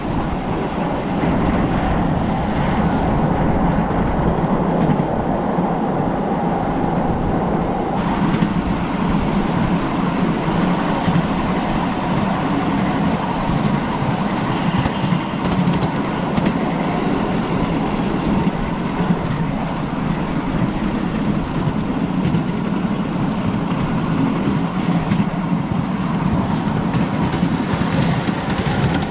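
Ride-on miniature railway train running along its small-gauge track, heard from a passenger car: a steady noise of the wheels on the rails with occasional clicks.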